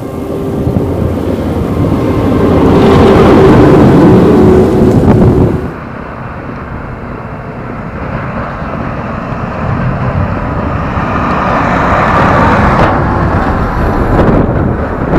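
Large farm tractors pulling grain carts driving past on a road, with engine and tyre noise swelling as each comes close. About halfway through, the sound breaks off abruptly and a John Deere tractor towing a tracked grain cart is heard approaching and passing close by near the end.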